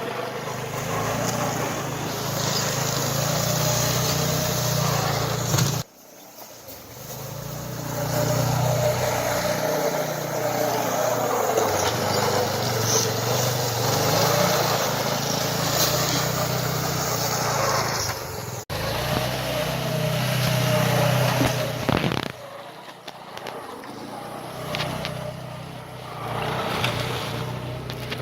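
Small 120 youth snowmobile engine running and revving as the sled is ridden, its pitch rising and falling with the throttle. The sound breaks off abruptly a few times.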